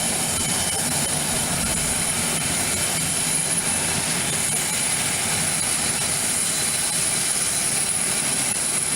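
Steady aircraft engine noise from a large plane coming in, holding an even level with no clear rise or fall.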